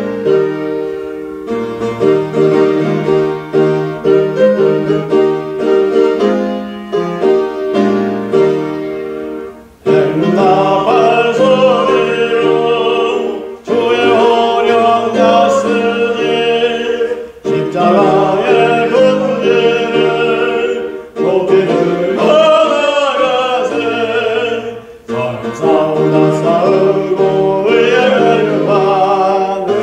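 A hymn played on keyboard: about ten seconds of instrumental introduction in held chords, then a man's voice comes in singing the melody with vibrato over the accompaniment, phrase by phrase.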